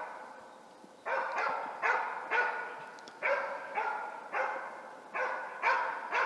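Grey Norwegian elkhound (gråhund) barking steadily at wild boar it is holding at bay, about two barks a second, starting about a second in. This is bay barking: the dog standing its game in the enclosure.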